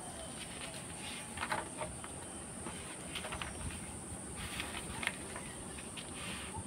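Sheets of paper rustling as they are handled and turned over, in several short rustles, over a steady high-pitched trill in the background.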